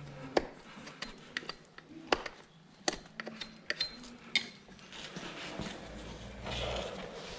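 Irregular sharp knocks and metallic clinks of farrier's tools and a horseshoe during shoeing, about nine in the first four seconds, followed by a rougher, steady noise over the last couple of seconds.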